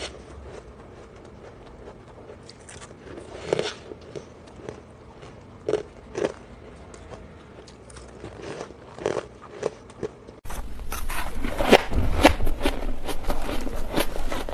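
Ice being bitten and chewed, with separate crisp crunches spaced a second or so apart. About ten seconds in it jumps to louder, denser crunching.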